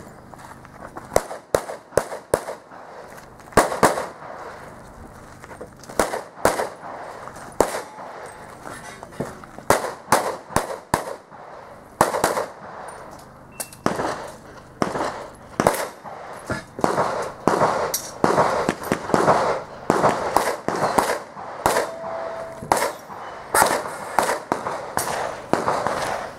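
Pistol shots from an IPSC handgun course of fire, fired in quick pairs and short strings with short pauses between groups as the shooter moves between positions.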